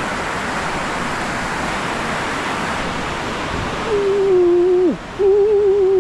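Rushing flow of river water over rocks. Near the end a man gives a drawn-out 'ooooh' call in two held notes, each dropping in pitch as it ends, the second one wavering.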